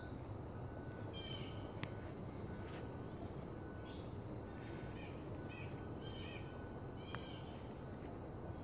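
Woodland birds singing, many short chirps repeated over a steady outdoor hiss, with two sharp clicks about two seconds in and near the end.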